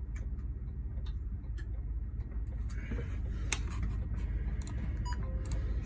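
Light clicks and taps of a double-sided key being handled in a key-cutting machine's clamp between cutting its two sides, over a steady low hum.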